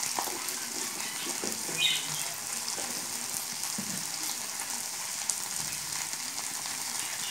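Onion and ginger-garlic-chilli paste with turmeric sizzling steadily in hot oil in a steel kadai, with faint clicks of the steel spatula against the pan and a short high squeak about two seconds in.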